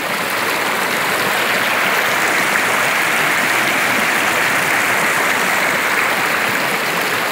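Swollen river water rushing over rocks in a small rapid: a steady, loud rush of white water. The river is running high with a strong current.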